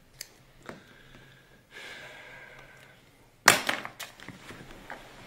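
Paper sounds from a notepad. A pen scratches on the pad for about a second, then a sheet is ripped off sharply about three and a half seconds in, the loudest sound, followed by the paper crackling and rustling.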